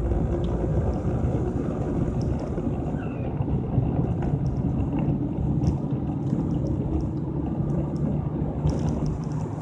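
Car driving at low speed heard from inside the cabin: a steady low rumble of engine and tyre noise, with faint scattered ticks over it.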